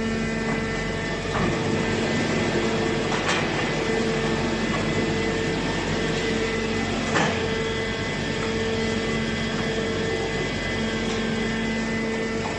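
MC630 metal baler running: a steady machine hum with a regularly pulsing tone, and a few sharp metallic knocks, the loudest about seven seconds in.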